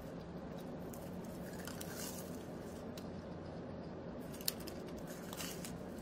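Flaky croissant being chewed and bitten, a few faint crisp crackles over a steady low room hum, the sharpest about four and a half seconds in.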